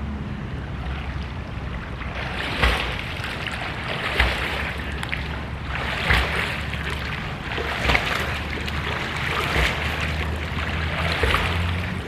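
Water splashing in a swimming pool in surges about every two seconds, over a steady low hum.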